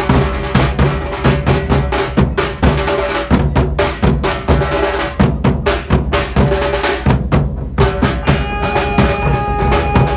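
Tambua ensemble of large Minangkabau barrel drums beaten with sticks in a fast, steady, dense rhythm. About two-thirds of the way in, steady held tones come in over the drumming.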